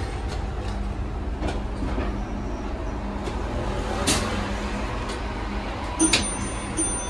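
Midtown Manhattan street traffic rumbling steadily, heard through the open doors of a street elevator. A sharp clunk sounds about six seconds in, followed by a faint high steady tone.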